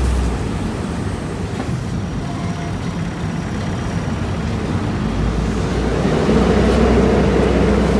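Heavy vehicle engines running at a road works site: a deep rumble that eases off about half a second in and swells again from about five seconds.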